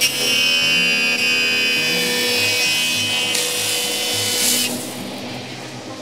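A 20-inch SCMI F520 Nova jointer's cutterhead facing a warped maple board pushed across its knives. The cut starts suddenly as a loud, high-pitched whine with a rasping cutting noise, then drops away to the idling machine about four and a half seconds in.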